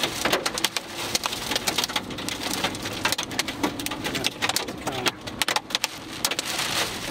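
Rain and soft hail striking a car's windshield and body, heard from inside the cabin: a dense run of irregular sharp hits over a steady rushing noise.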